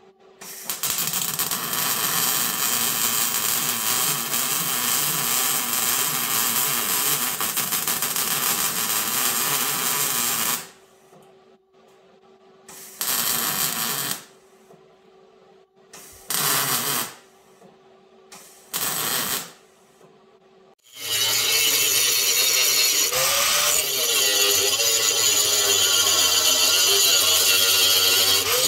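A wire-feed MIG welder runs a continuous bead of about ten seconds on a steel truck-frame patch plate, then makes three short crackling bursts of a second or so each with pauses between. From about 21 s an angle grinder runs steadily, grinding the fresh welds on the frame.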